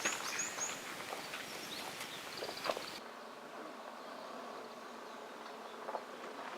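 Outdoor summer ambience with insects buzzing and a quick run of four high, falling chirps at the start; the background turns quieter about three seconds in.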